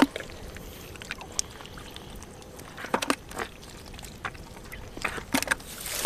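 Hands squelching and splashing in shallow mud and water, with a scattering of short wet slaps and plops a few times over the seconds.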